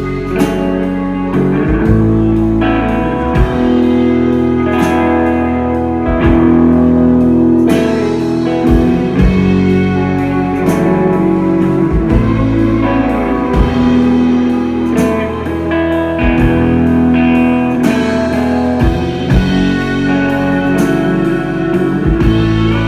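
Live band playing loud through a club PA: electric guitars and pedal steel guitar holding long notes over drums keeping a slow, steady beat.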